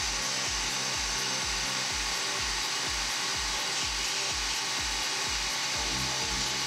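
Brake lathe running, its cutting bit taking a slow final finishing pass across a brake rotor damped by a silencing band: a steady high hiss. Background music with a steady bass beat plays over it.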